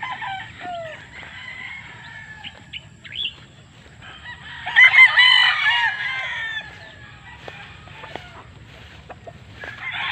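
Several gamefowl roosters crowing over one another. The loudest crows come about four and a half seconds in and last about two seconds.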